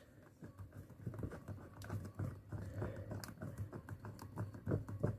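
Screwdriver tightening the terminal set screws on an electrical outlet: faint, irregular small clicks and scrapes of metal and plastic, over a steady low hum.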